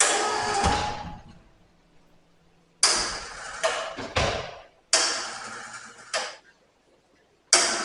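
Knocks and scraping in four short bursts, each starting abruptly and fading within a second or two.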